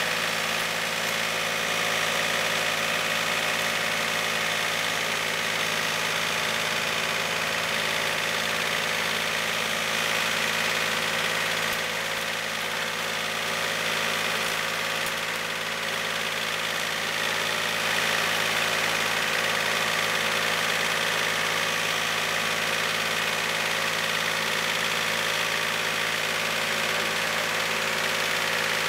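Compact tractor's engine running steadily at an even, low speed, without revving.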